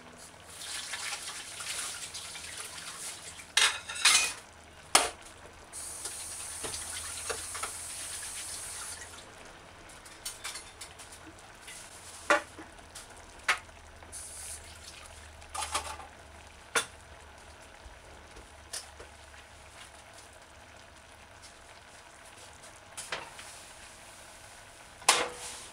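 Scattered clinks and clatters of kitchen utensils and dishes, about a dozen sharp knocks spread out, with two stretches of hiss a few seconds long, near the start and a few seconds later.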